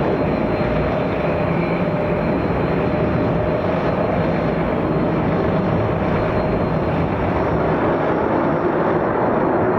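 Airbus A319 jet airliner's engines at takeoff thrust: a steady, even jet rumble with a faint steady whine.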